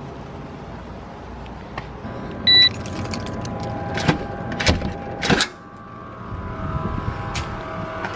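A short, loud electronic beep about two and a half seconds in. Then a key works the lock of a metal push-bar door and the door's latch clacks open, giving several sharp clicks and knocks over about a second. A steady hum with several pitches follows.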